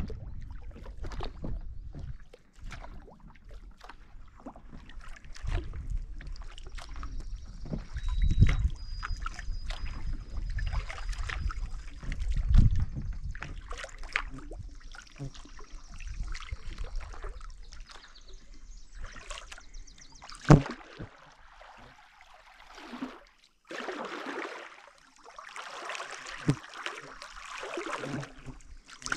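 Kayak paddling on calm water: a double-bladed paddle dipping in, with water trickling and dripping off the blades, a few low bumps and one sharp knock about two-thirds of the way through. Near the end the water noise gets denser and busier.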